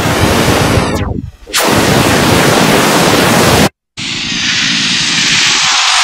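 Fractal images and photographs played back as sound with Photosounder, each picture turned into a dense, loud hiss whose texture traces the image. The hiss sweeps down and back up about a second in, stops dead for a moment a little past the middle, then returns as a different, brighter hiss.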